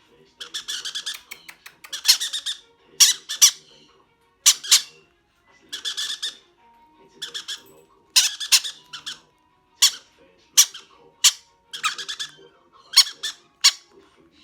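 Baby pineapple conure chicks giving repeated short squawking calls, one or two a second, the begging calls of hand-fed parrot chicks.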